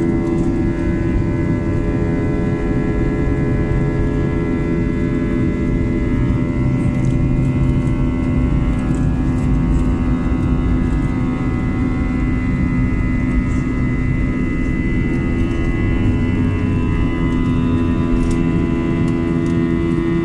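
Airbus A321 jet engines heard from inside the passenger cabin in flight: a loud, steady rumble with several steady whining tones over it.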